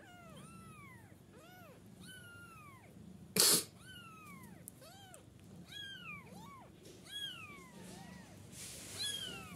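Young kitten, one to two weeks old, mewing over and over in high, thin calls, each rising then falling in pitch, about two a second. A brief, loud rush of noise cuts in about three and a half seconds in.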